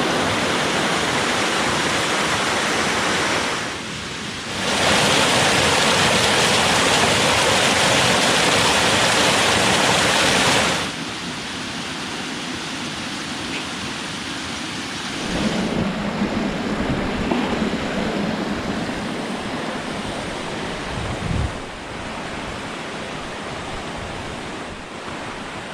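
Mountain waterfall rushing: a steady wash of falling water. Its level jumps abruptly several times and is loudest from about five to eleven seconds in. In the second half a low rumble joins it.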